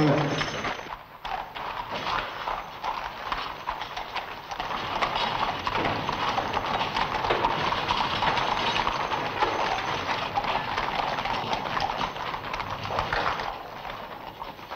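Several horses' hooves clattering on cobblestones as riders cross a courtyard, a dense, continuous clatter that dies away shortly before the end.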